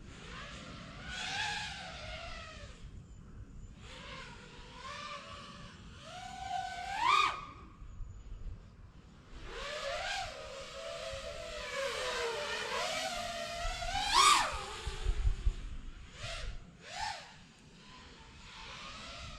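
Six-inch FPV quadcopter's motors and propellers whining in flight, the pitch rising and falling with the throttle. Two sharp throttle punches about seven and fourteen seconds in, and two short blips a little after the second.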